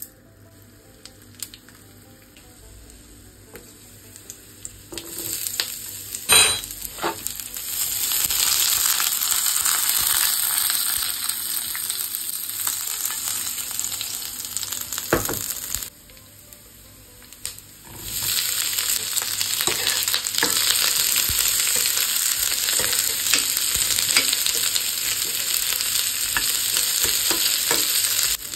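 Whole spices, garlic and onions sizzling in hot oil in a stainless steel frying pan, with a metal spoon clicking and scraping against the pan as they are stirred. The sizzle builds after a few seconds, with a sharp clatter about six seconds in. It drops away briefly a little past halfway, then comes back loud.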